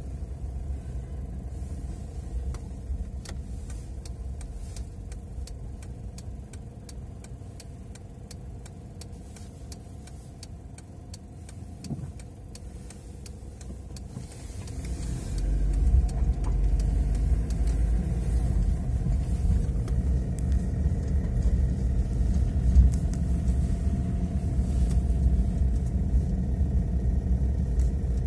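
Car engine and road rumble heard from inside the cabin, a low steady rumble that grows louder about halfway through as the car picks up speed.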